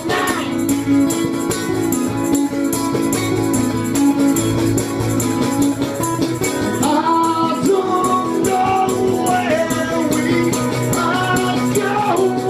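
Live acoustic duo: two acoustic guitars strummed in a steady rhythm, with a man singing over them, the voice clearest near the start and in the second half.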